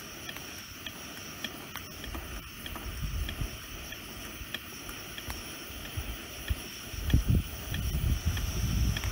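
Pump plunger of a single-burner liquid-fuel camp stove being worked to pressurize the fuel tank, giving regular light clicks about two or three times a second. Wind buffets the microphone from about two seconds in, loudest near the end.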